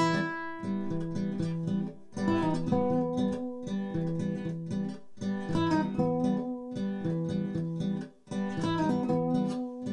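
Two nylon-string classical guitars playing an instrumental duet, fingerpicked melody and chords over a repeating bass pattern. Short breaks between phrases come about every three seconds.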